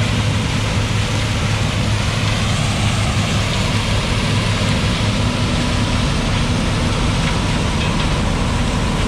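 John Deere 8820 combine running steadily while harvesting corn: a constant low diesel drone under the even rush of the header and threshing machinery.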